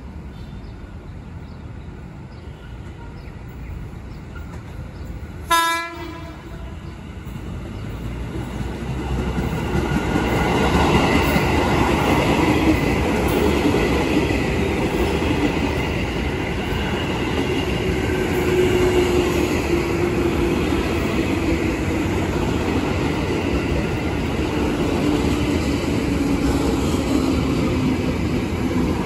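Ex-JR 205 series electric commuter train gives one short horn blast about five seconds in, then comes up and runs past, a loud steady rumble of wheels and running gear with a low tone slowly dropping in pitch near the end.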